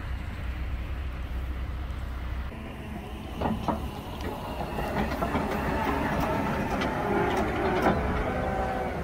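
Diesel engine of a wheel loader running, its pitch wavering, with a few sharp metallic clanks. It follows a low, even rumble from wind or distant machinery.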